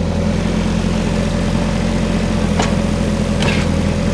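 Diesel engine of a compact digging machine running steadily under a thin steady whine, with two short knocks about two and a half and three and a half seconds in.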